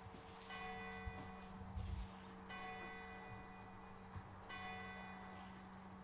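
A bell tolling faintly and slowly, struck three times about two seconds apart, each strike ringing on. A dull low thump about two seconds in.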